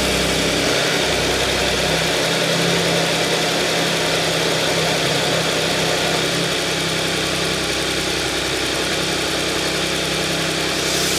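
Audi S engine idling steadily after a cold start, with a newly fitted timing-chain guide rail. No chain rattle is heard, and the raised cold idle is slowly settling.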